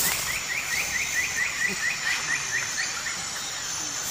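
Jungle ambience: an animal calls in a fast run of short rising chirps, several a second, stopping about three seconds in, over a steady high hiss.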